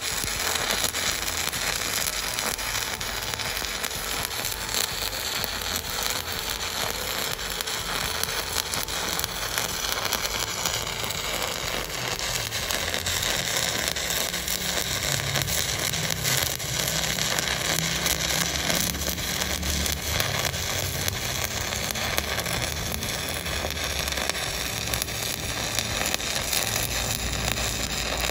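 Stick-welding arc from a 200 A Volt 2-in-1 inverter welder, crackling and sizzling steadily as the coated electrode burns and throws spatter.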